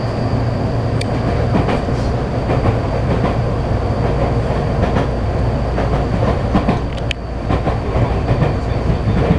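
Running sound of a Tokyu 3000 series electric train heard from inside the car: a steady rumble of wheels on rail with scattered clicks over the rail joints. A steady high whine runs over it and cuts off about seven seconds in.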